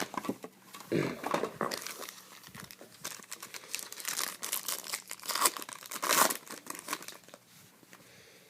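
Trading-card packaging being torn open and crumpled, an irregular crinkling and tearing with louder bursts about a second in and again past the middle, dying away near the end.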